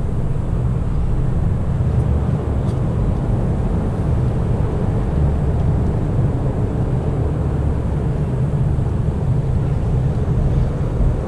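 Steady low rumbling noise with no clear pitch, holding an even level throughout.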